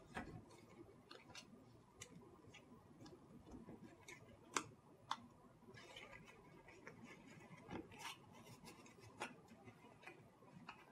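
Faint rustling and crisp, irregular ticks of a paper strip being folded and creased by hand on a cloth-covered table, with two sharper clicks close together near the middle.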